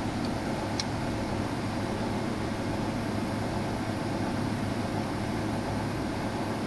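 Semi-hermetic reciprocating refrigeration compressor running with a steady low hum, mixed with the rushing of the condenser fan.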